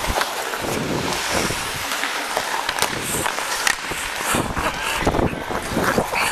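Ice hockey skates carving and scraping across the ice during play, with wind rushing over a helmet-mounted microphone and scattered sharp clacks.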